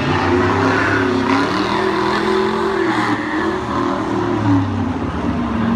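Several pickup trucks racing together, their engines running hard and revving, the pitch rising and falling as they accelerate and lift off.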